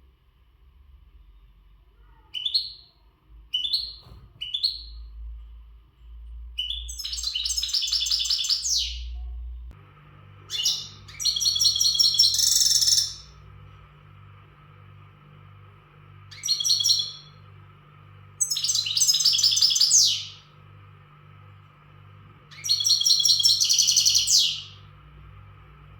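European goldfinch singing in its breeding-condition song. A few short single calls come first, then several loud bursts of rapid, twittering song phrases a few seconds apart. From about ten seconds in, a steady low hum runs underneath.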